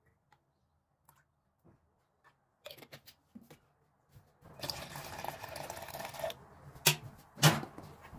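Liquid poured into a plastic measuring jug for about two seconds, followed by two sharp knocks, the second the louder.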